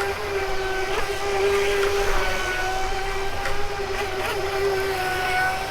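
Battery-powered remote-control racing boat running at a steady speed on the water: a steady high motor whine that holds its pitch, dipping slightly now and then, with a few brief ticks.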